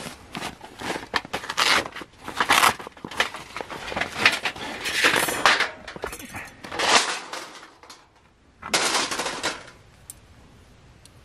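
A knife shaving curls off a wooden stick to make a feather stick for fire lighting. It is a quick series of scraping strokes, a pause about seven and a half seconds in, then one last longer stroke.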